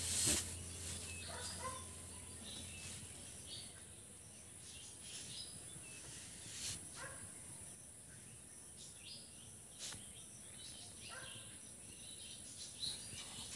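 Quiet rural background: faint scattered bird chirps over a thin, steady high-pitched tone, with a short knock right at the start.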